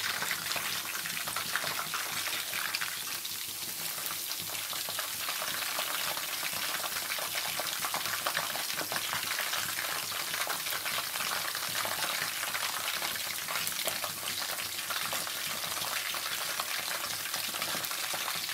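Batter-coated soya chunks deep-frying in a kadai of hot oil: a steady, dense crackling sizzle.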